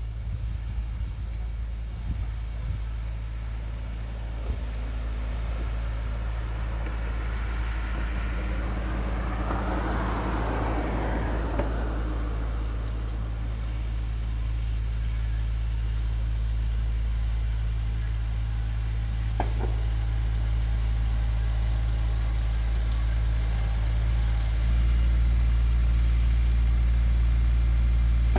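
Tractor engine running steadily, a low hum that grows louder toward the end. About ten seconds in, a broader rushing sound swells and fades.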